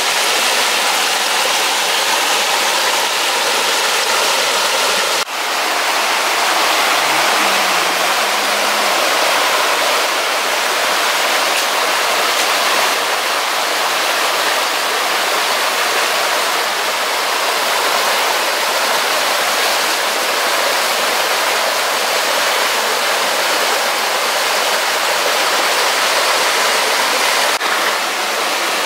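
Shallow rocky stream with a small cascade, water rushing over the rocks in a steady, loud hiss, with a brief drop about five seconds in.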